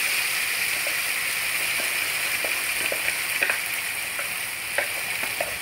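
Ground onion-tomato paste sizzling as it is poured into hot oil in a nonstick pan: a steady hiss with a few small pops.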